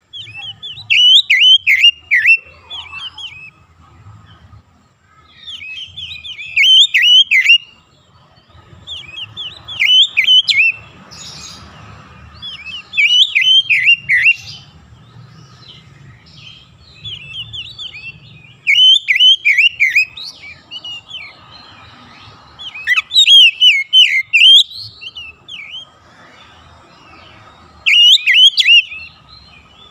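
Oriental magpie-robin (kacer) singing loudly in repeated bursts of fast, varied whistled and chattering phrases, about eight bursts of a second or two each, separated by short pauses.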